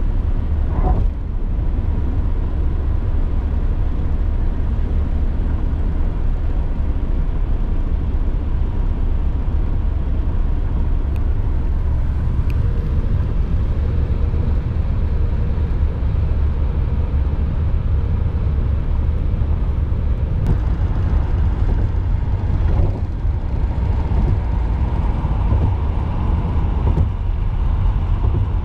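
Steady low rumble of road and engine noise inside a moving taxi's cabin, with no sudden events standing out.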